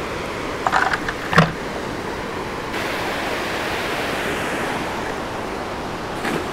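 Water rushing steadily down a concrete dam spillway and churning at its foot, with a few short sharp knocks a little after a second in.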